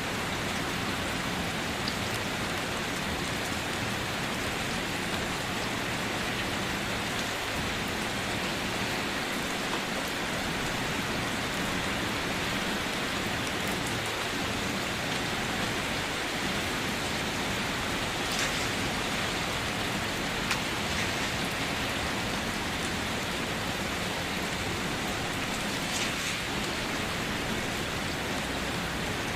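Steady rain falling on a car, an even hiss with occasional sharper drop ticks.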